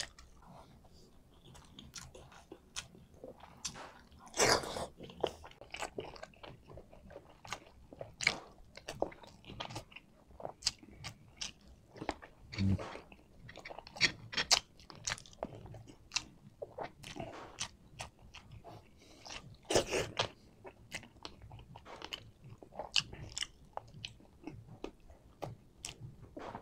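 A man chewing a mouthful of rice and beef shank close to the microphone: many quick, wet mouth clicks and smacks, with a few louder ones.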